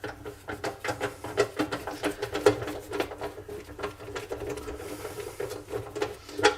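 Rapid, irregular clicking and rattling of plastic and metal parts being handled, as the pillar drill's cover is worked open to reach the belt and pulleys.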